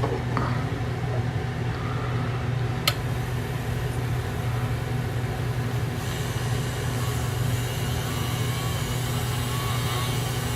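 Motor of a powered graver-sharpening machine running with a steady hum. There is one sharp click about three seconds in, and a faint hiss joins from about six seconds.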